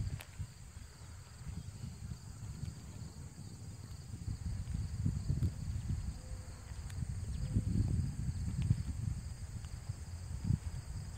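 Wind buffeting the microphone in uneven gusts, over a steady high trilling of crickets or other insects.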